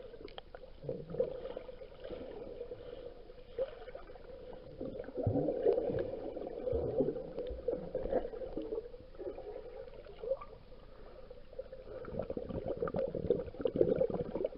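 Muffled water sloshing and gurgling that swells and fades irregularly, with small knocks here and there.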